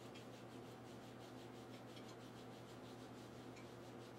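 Faint, soft rubbing of yarn as it is wound round and round a hand and elbow, a light swish several times a second over a steady low room hum.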